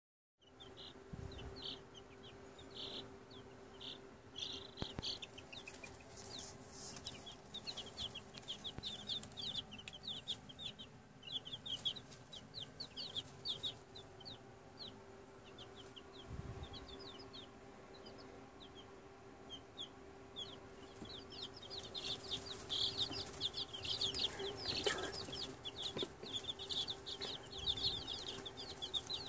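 A brood of young chicks peeping: many short, high cheeps that slide downward in pitch, busier over the last several seconds, over a steady low hum.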